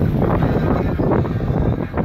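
Wind buffeting the microphone: a loud, uneven rumbling rush with no steady tone.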